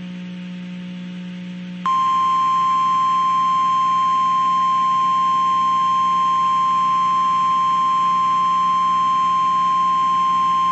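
Emergency Alert System warning alarm tone: a single steady tone of about 1050 Hz, the weather radio alert tone. It starts abruptly about two seconds in, holds unchanged for about nine seconds and cuts off. A low steady hum lies underneath.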